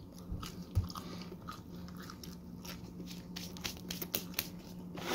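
A person chewing and biting pizza with a full mouth: wet chewing with many small, irregular crunchy clicks. A faint steady hum runs underneath.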